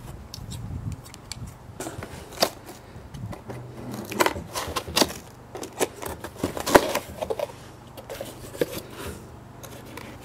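Cardboard shipping carton being opened by hand with scissors: irregular clicks, crinkles and scrapes of the cardboard flaps and packing tape.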